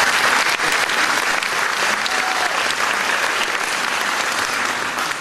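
Audience applause: a steady clatter of many hands clapping.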